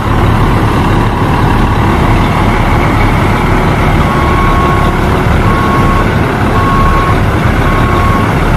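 Concrete mixer truck's diesel engine running steadily, loud and low. From about halfway through, a reversing alarm beeps about once a second.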